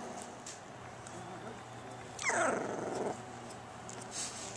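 A two-and-a-half-week-old Newfoundland puppy gives a single whine, a little over two seconds in, that starts high and falls steeply in pitch over about a second.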